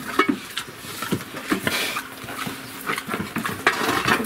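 A litter of piglets grunting and moving about a pen with a sow, with many short, irregular knocks and scuffles of small hooves on the plank floor.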